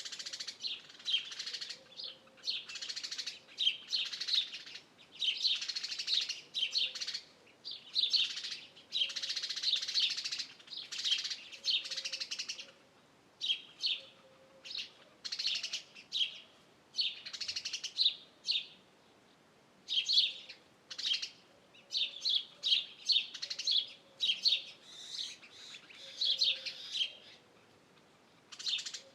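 Songbirds chirping and singing in quick, high phrases, one after another with short pauses between them.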